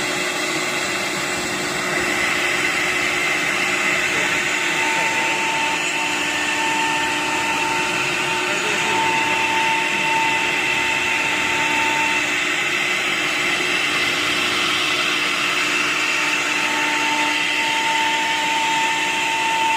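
Nesting CNC router machine running: a steady machine whine with several held tones, one coming in about two seconds in, and another tone pulsing on and off through the middle and again near the end.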